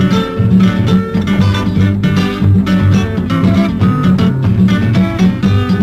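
Instrumental break in a candombe song: guitars strumming and plucking quick notes over a steady bass line.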